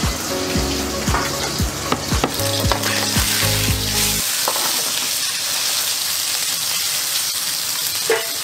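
Chicken pieces frying in hot oil in a wok over a gas burner, a steady hissing sizzle that grows stronger from about four seconds in as the ladle stirs. Before that, a low steady hum with regular knocks about twice a second sits under the frying.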